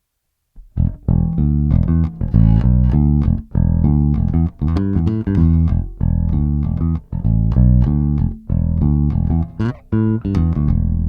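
A bass groove: short, sharply attacked bass notes in a rhythm broken by brief gaps, starting about half a second in.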